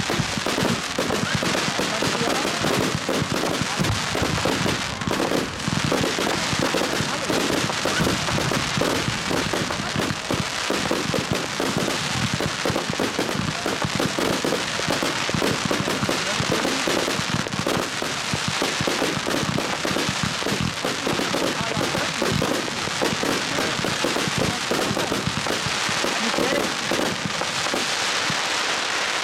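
Consumer firework cakes (batteries) firing in a dense, continuous barrage: rapid overlapping shots and bursts with crackling, with no break.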